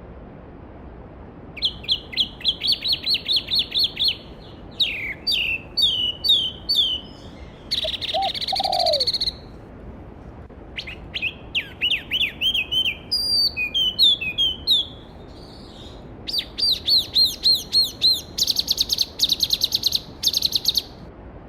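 A songbird singing a series of loud phrases, each a fast run of repeated whistled notes, with short pauses between them, over the steady rush of a mountain stream.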